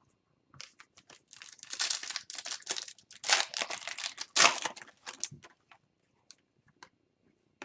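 Plastic wrapper of a hockey card pack crinkling and tearing as it is handled and opened, in a run of crackly rustles over about five seconds.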